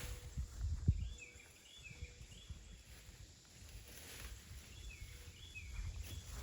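A bird calling: short chirps that bend down in pitch, three or four in a row about a second in and a few more around five seconds, over low thumps and rustling.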